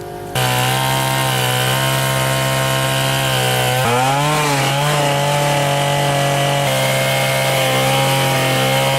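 Two-stroke chainsaw running at a steady high speed while cutting up a fallen tree. It starts suddenly about half a second in, and its pitch dips and wavers about four seconds in as the chain bites, then settles again.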